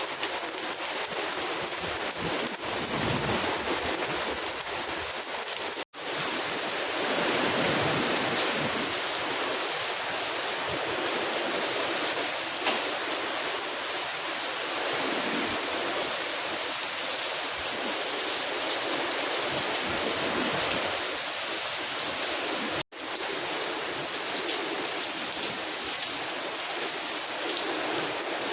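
Rain falling steadily, an even hiss of water. It breaks off for an instant twice.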